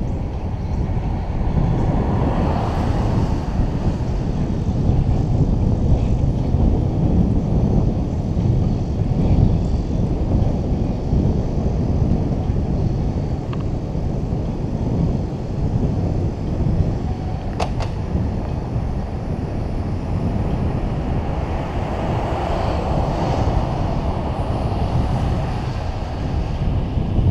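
Steady wind rumble on the microphone with rolling road noise from a ride along a paved street, with a brief click about two-thirds of the way through.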